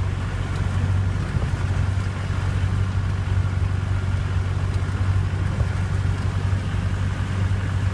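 A Jeep's engine running with a steady low drone, heard from inside the cabin as it drives through deep floodwater, with an even wash of noise over it.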